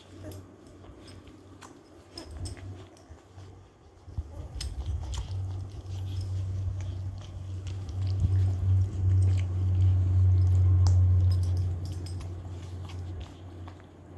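Eighteen-day-old puppies suckling at their mother's teats, with wet little smacking clicks scattered throughout. A low steady hum swells up about four seconds in and is loudest from about eight to twelve seconds, then fades.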